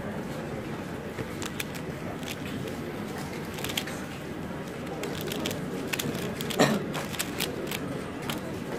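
Irregular plastic clicking of a Pyraminx puzzle being turned by hand, with one louder knock about two-thirds of the way through, over a steady murmur of room noise.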